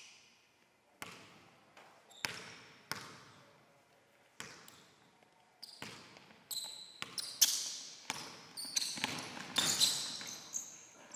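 A basketball bouncing on a hardwood gym floor: a few single bounces spaced about a second apart, each echoing in the hall, then quicker dribbling about halfway through with short high squeaks of sneakers on the court.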